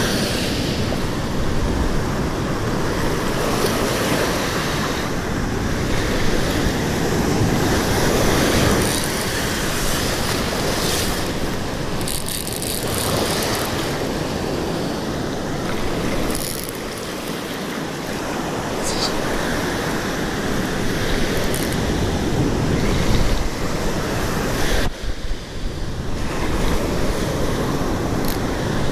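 Surf breaking and washing up a sandy beach, a steady rush that swells and eases, with wind buffeting the microphone.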